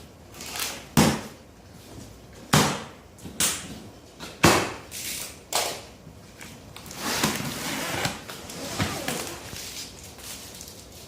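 Handling of a large cardboard shipping box: about five sharp thuds and knocks in the first six seconds, then a longer stretch of rustling and scraping of cardboard.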